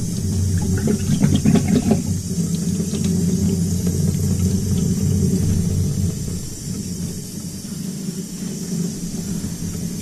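Tap water running into a utility sink while a furnace's plastic condensate trap is rinsed out under it, with a few clatters of the trap being handled in the first couple of seconds. The water eases off somewhat after about six seconds.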